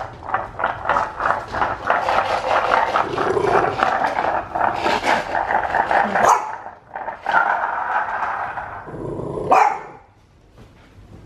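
English bulldog puppy growling in a long run of rapid pulses, with a brief pause about seven seconds in and one short, sharp sound near the end.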